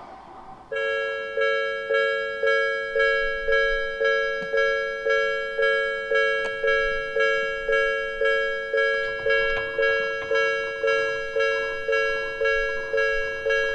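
Japanese railway level-crossing warning bell ringing: a two-pitch 'kan-kan' ding starts about a second in and repeats steadily about twice a second. It signals that a train is approaching and the crossing is closing.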